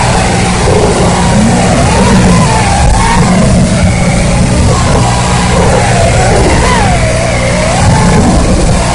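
Racing quadcopter's four Emax 2204 2300kV brushless motors with 4-blade props whining, the pitch rising and falling every second or so with throttle, under a steady hiss and hum from the analog video link's audio.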